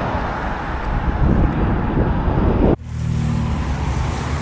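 Road traffic: cars driving past on the road, the noise building until it cuts off suddenly just under three seconds in. After the cut comes a steadier, lower engine hum from traffic.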